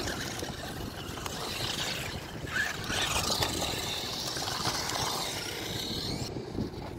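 Two small electric RC monster trucks with brushed motors running over rough, stony dirt, heard faintly under a steady rumble of wind on the microphone.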